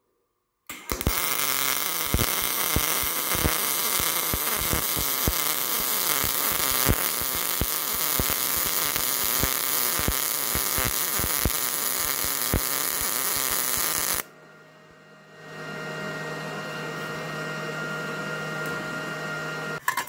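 Miller 211 MIG welder arc laying a bead on thin auto-body sheet steel at the 4.5 voltage setting: a steady, continuous bacon-frying buzz with scattered crackles, lasting about 13 seconds before it cuts off. The steady, even sound marks a well-dialed voltage. A quieter steady machine hum with several fixed tones follows.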